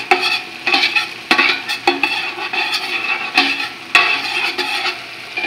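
A spoon stirs and scrapes around a large stainless steel stockpot in repeated strokes, knocking sharply on the pot a few times, while garlic and onion sizzle as they sauté in hot oil.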